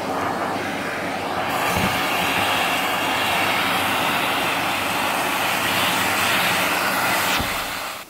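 Vacuum cleaner running steadily, with air rushing into the open end of its hose as it sucks over a tiled floor. The hiss turns brighter and a little louder about one and a half seconds in.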